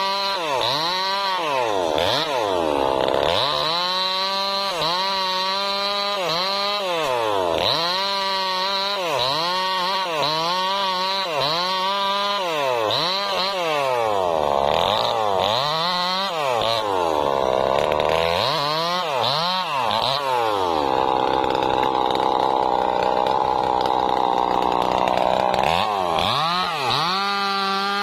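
Maestro petrol chainsaw cutting through a felled sengon log, its engine pitch rising and falling over and over as the chain bites and frees in the wood. About three quarters of the way through it holds one steady high pitch for about five seconds, then starts rising and falling again.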